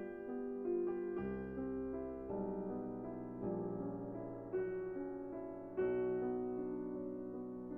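Background piano music: a slow, gentle melody with sustained chords and bass notes.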